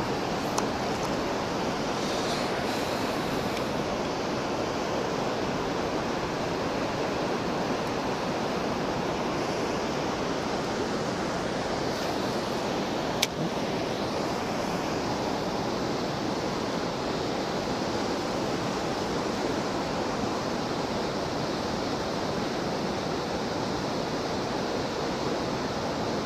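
Rushing stream water, a steady even noise with one sharp click about halfway through.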